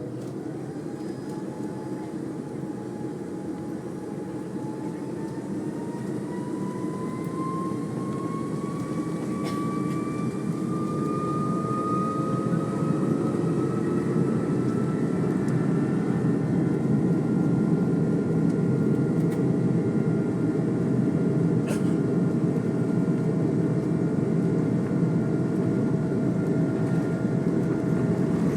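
Airbus A330-243's Rolls-Royce Trent 700 jet engines spooling up to takeoff thrust, heard from inside the cabin: a whine rising steadily in pitch and growing louder over about ten seconds, then settling into a steady roar with a low rumble.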